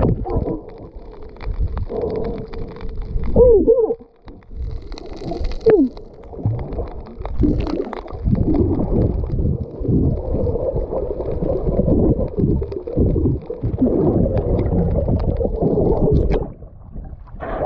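Muffled gurgling and sloshing of water over a camera held at or below the surface on a snorkel dive, irregular and mostly low-pitched, with a few short muffled sweeps in pitch.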